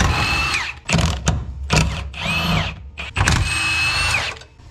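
Milwaukee Fuel cordless impact wrench hammering in several short runs, its motor whine rising at the start of each run and falling as it stops, as it undoes the 17 mm bolts of a car's rear subframe brace.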